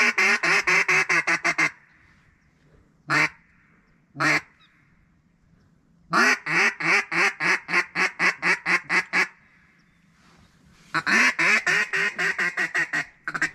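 Duck call blown by a hunter: three fast runs of loud mallard-style quacks, about six a second, with two single quacks between the first and second runs.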